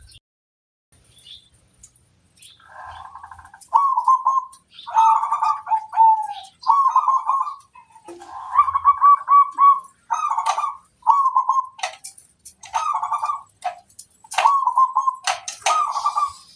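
Zebra dove (perkutut) cooing: a string of short rolling coo phrases starting about three seconds in, with sharp clicks between them.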